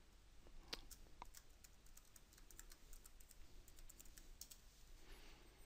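Faint computer keyboard keystrokes, irregularly spaced, as a password is typed.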